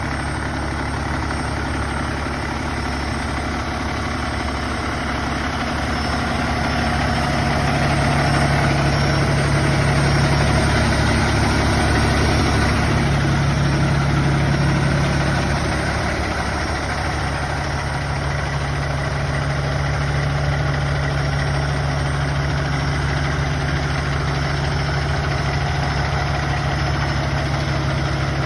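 Peterbilt 567 dump truck's diesel engine idling steadily, a little louder for a while in the middle.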